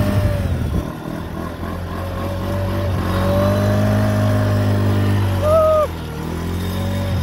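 Off-road vehicle engine running while driving over sand dunes. The engine note eases off about a second in, then builds again and holds steady, with a brief rise in pitch about five and a half seconds in.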